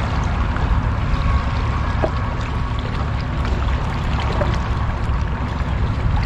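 Steady rushing sea-water noise with a deep low rumble beneath it, even throughout.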